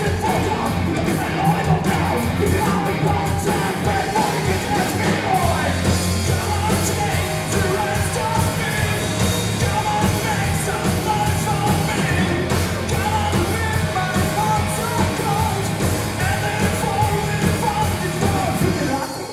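A rock band playing live: electric guitar, bass guitar and a drum kit, with a singer's voice over them.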